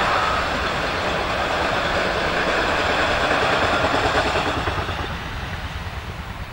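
Rake of open freight wagons rolling past on the rails, a steady wheel-on-rail noise that fades away from about four and a half seconds in as the last wagons pass.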